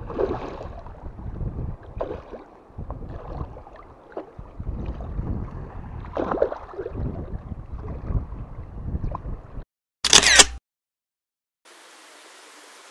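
A hooked carp splashing at the surface in shallow water as it is drawn in by hand on the line. The sound cuts off, a short sharp click comes about ten seconds in, and then a soft steady wash of lake water.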